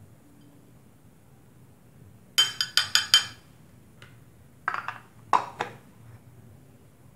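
Kitchen dishes and utensils clinking: a quick run of about five sharp, ringing clinks, then two more clatters a couple of seconds later.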